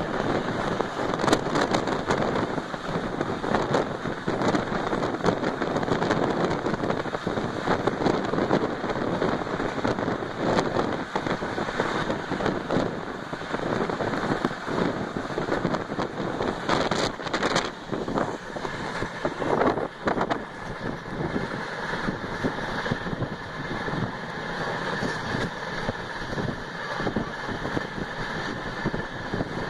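LHB passenger coach of an Indian Railways express running at speed, heard from an open window: a steady rush of wheel and rail noise, full of sharp clicks and clatter, with wind on the microphone. A thin steady whine joins in about two-thirds of the way through.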